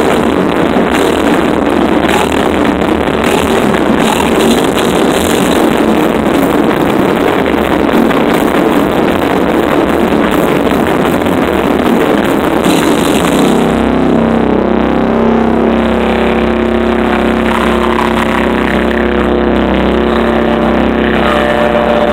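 Death metal band playing live, recorded loud and distorted: pounding drums under heavy distorted guitars. About two-thirds of the way through, the drumming stops and held guitar notes ring on.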